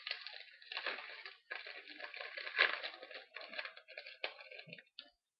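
Crinkling and rustling of a foil trading-card pack wrapper and the cards being handled, with small clicks, as a pack is opened; it stops about five seconds in.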